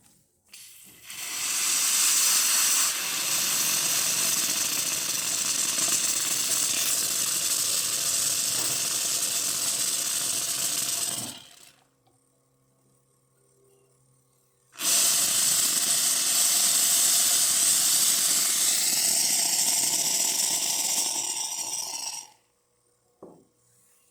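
Quick Mill Vetrano 2B hot water tap dispensing with the pump running, a loud steady hiss of flashing steam and water. It runs in two long spells, about ten and seven seconds, with a short pause between, and cuts off sharply each time.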